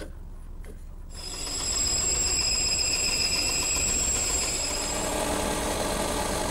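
A band saw starts up about a second in and runs steadily, cutting a board of redwood trim along a marked curve. Its high whine drops out about five seconds in, leaving a lower steady machine hum.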